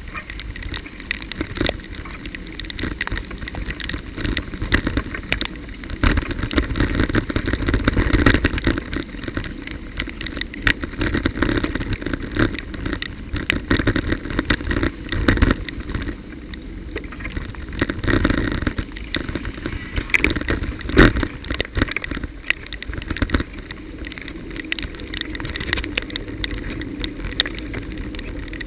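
Street traffic on wet asphalt: cars and trucks driving past with tyre noise, over a steady low rumble, with frequent short knocks and rattles.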